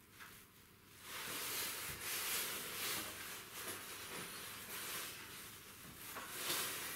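Soft rustling and handling noise as hands pick up small parts, a metal washer and a wooden ring, from a wooden workbench, starting about a second in and going on steadily.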